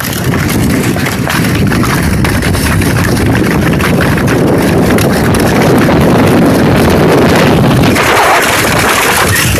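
A sled sliding fast down an icy, snow-packed hill: a loud, continuous scraping rumble of the sled over the ice, with wind buffeting the microphone. The sound turns to a higher hiss near the end.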